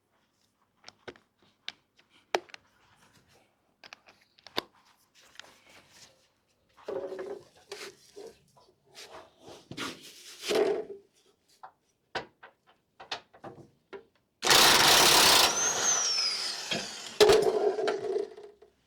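Metal clinks and knocks of sockets and wrenches on the van's suspension fasteners, then a loud power tool runs in two bursts near the end, working a fastener loose.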